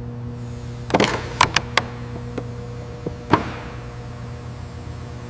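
A quick run of sharp knocks and taps, about seven in all, bunched between about one and three and a half seconds in, over a steady low hum.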